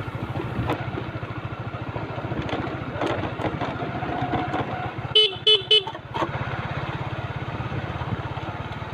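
Motorcycle engine running steadily at low speed; a little after five seconds in, its horn beeps three times in quick succession, sounded as a customary courtesy when crossing a bridge.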